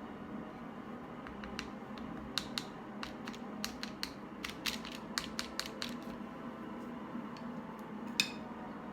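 A quick run of light clicks and taps, several a second, with one louder click near the end, over a steady low hum.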